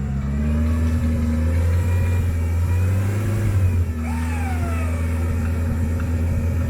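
Off-road 4x4's engine revving under load, its pitch rising and falling as the engine speed changes.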